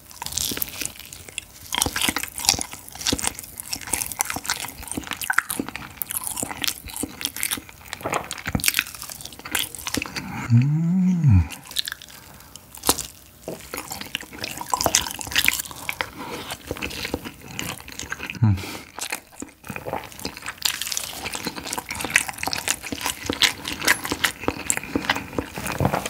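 Close-miked eating: biting into and chewing a soy-marinated soft-boiled egg with rice, full of wet mouth sounds and lip smacks. About ten seconds in the eater gives a short hummed "mm" that rises and falls in pitch.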